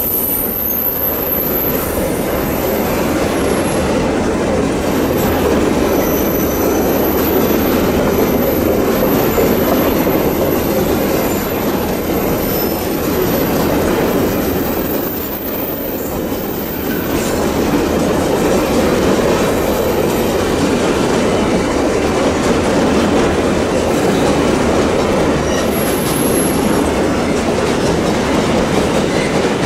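Empty open coal wagons of a long Babaranjang coal train rolling past on a curve: a steady rumble and clatter of steel wheels over the rails, with thin high wheel squeals from the curve now and then, near the start, about halfway through and near the end.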